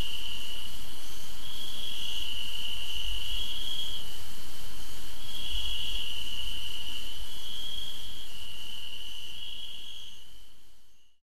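Crickets calling in a continuous high trill that wavers slightly in pitch, fading out near the end.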